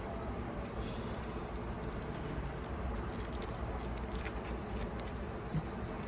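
Faint rustling and light ticks of a cardboard card box and its contents being handled, over a steady low background hum.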